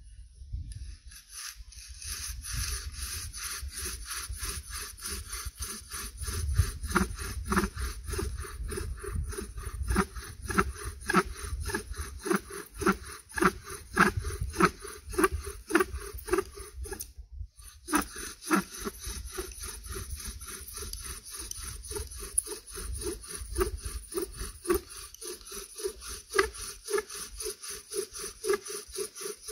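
Bow drill in use: a wooden spindle spun back and forth by a paracord bow, grinding in the notch of a dead cedar hearth board in quick, even strokes of about three a second, with one brief break a little past halfway. It is the friction stage that builds hot wood dust towards an ember.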